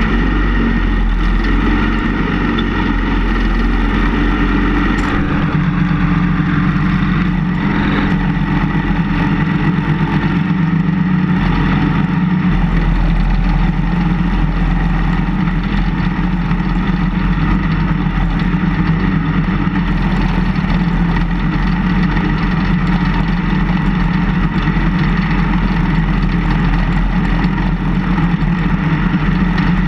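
Engine of a small snowplow vehicle running steadily as it pushes snow with its front plow blade.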